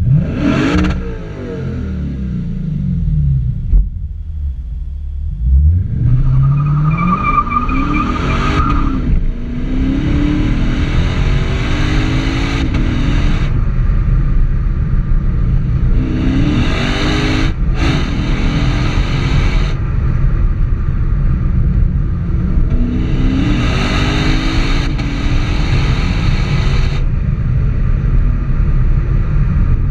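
Lexus RC F's 5.0-litre V8 exhaust, blipped and then accelerating hard in three long pulls. The note climbs in pitch with each pull and cuts off abruptly at the end of each one.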